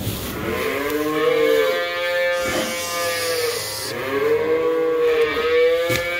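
Young cattle mooing: two long, drawn-out calls one after the other, each lasting about three seconds.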